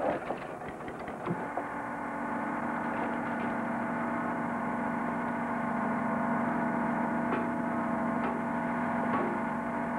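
Steady electronic hum of a sci-fi film soundtrack, several held tones together, swelling in about a second in and then holding level, with a few faint clicks.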